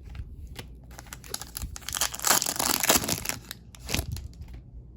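Foil trading-card pack crinkling and tearing as it is ripped open, loudest in the middle, with a few sharp crackles around it.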